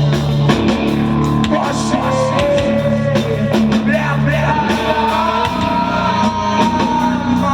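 Heavy rock band playing: electric guitars over bass and drums, with a sung line.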